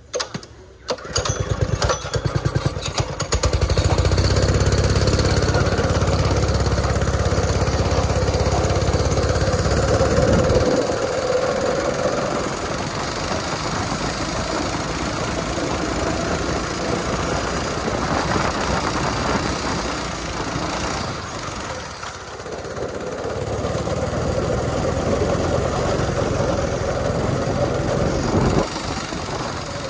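Small go-kart engine picking up about a second in with fast, even pulses, then pulling hard with a deep drone. It eases off for a long stretch, pulls hard again, and drops back shortly before the end.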